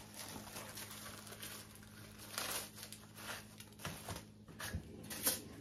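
Faint crinkling and rustling with light, scattered clicks as crisp hard taco shells are pulled from their plastic sleeve, separated and set down on a foil-lined baking tray, over a low steady hum.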